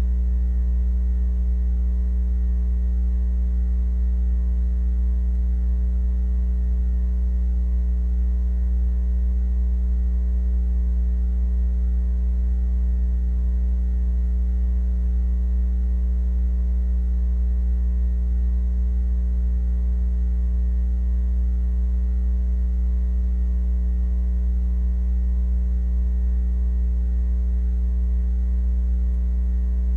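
Steady electrical mains hum: a loud, unchanging low drone with a ladder of fainter overtones above it. It is the hum of the old video transfer, left bare where the soundtrack's music is missing.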